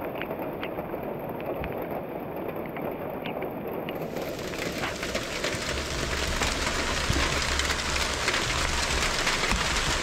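Heavy rain falling, with separate drops ticking at first. About four seconds in it thickens into a louder, hissing downpour.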